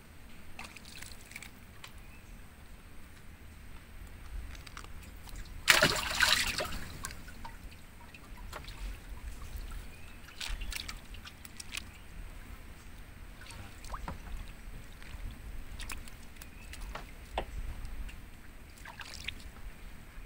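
Water sloshing and lapping against a wooden boat's hull, with scattered small knocks and clicks from handling on board. One louder, sharp sound comes about six seconds in.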